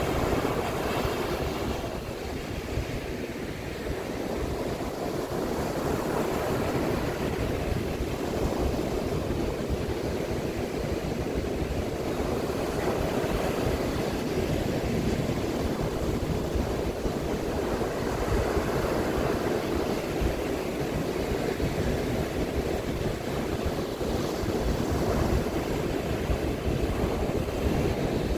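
Baltic Sea surf breaking and washing up a sandy beach: a steady rush of waves with a low rumble underneath.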